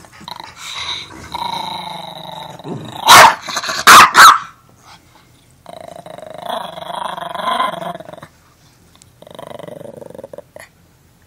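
Yorkshire terrier growling in long runs, broken by three sharp barks in quick succession about three to four seconds in: a small dog guarding its empty food bag.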